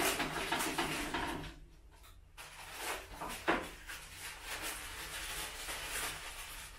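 Rustling and light knocks of small things being handled and moved about at a bathroom cabinet, with a sharp click about halfway through.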